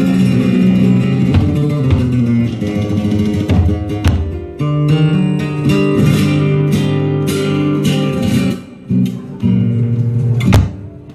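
Live flamenco band music with guitar and sustained held chords, broken by a few sharp accented hits, the loudest near the end.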